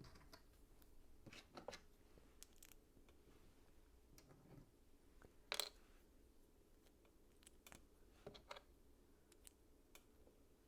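Faint, scattered clicks and taps of plastic LEGO pieces being handled and pressed together, with one sharper click about halfway through.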